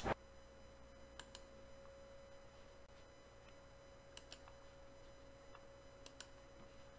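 Near silence with a faint steady hum and three pairs of soft computer-mouse clicks, about a second in, about four seconds in and about six seconds in.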